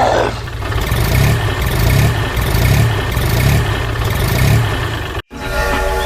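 A vehicle engine idling, a steady low rumble with a slow throb about every 0.7 seconds, cutting out abruptly for a moment near the end.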